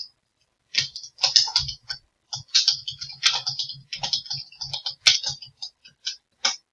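Typing on a computer keyboard: a quick run of keystrokes starting about a second in, with a brief pause partway through.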